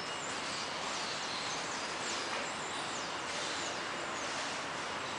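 Steady outdoor background hiss with small birds calling: thin, high chirps that slide downward, repeated several times.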